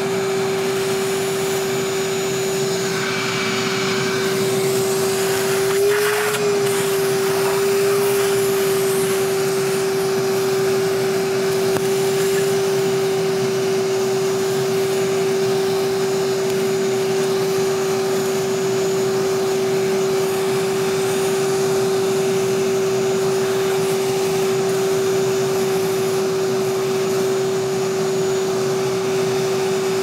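Shop vac running steadily with a constant motor whine, sucking residual water and debris out of the dishwasher's sump through the drain-pump port. Its pitch wavers briefly about six seconds in.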